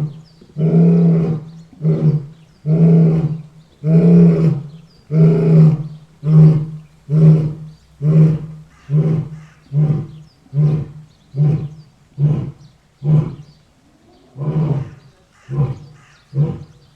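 Lion roaring: a bout of four or five long, loud roars followed by a run of shorter grunts, about one every 0.7 seconds, that grow shorter and weaker toward the end.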